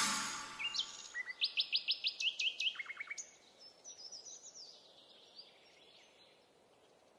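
Songbird singing: a quick run of sharp chirping notes, with a few lower ones under them, starting about a second in and fading out after a few seconds. At the start the tail of a loud noisy hit fades away.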